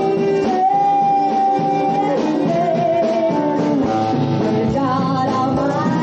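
Live band playing, with a singer holding long, slightly wavering notes over the band.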